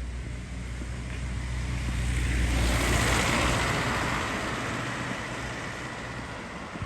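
A motor vehicle passing by: engine hum and tyre noise swell to a peak about three seconds in, then slowly fade. A short thump at the very end.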